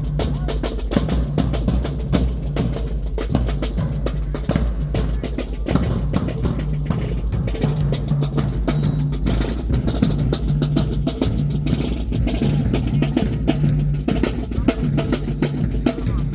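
High school marching band playing: a drumline beating out a steady rhythm under low brass notes.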